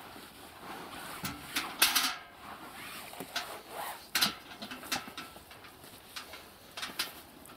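Water sloshing and splashing in the bottom of an inflatable rubber boat as it is scrubbed out by hand with a wad of grass. Irregular sharp splashes and scuffs, the loudest about two seconds in.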